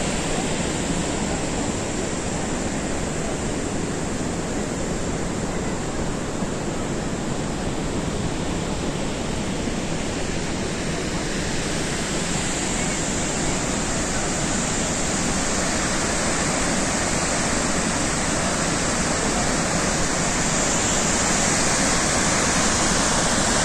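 Steady rush of water from Gokak Falls and the rapids above it, a dense even noise that grows a little louder near the end.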